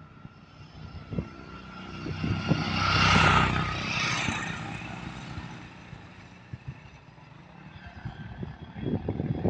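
An engine-powered vehicle passing by, its sound swelling to a peak about three seconds in and then fading away. Low rumbles, like wind or handling on the microphone, near the end.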